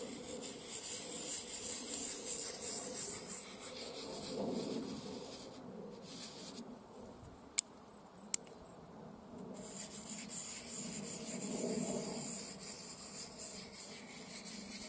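Steel blade of a Cold Steel SRK knife scraped in circular strokes across the diamond side of a Fallkniven DC3 pocket stone, touching up the edge: a steady rasping scrape. About six seconds in the scraping stops for a few seconds, with two light clicks, then starts again.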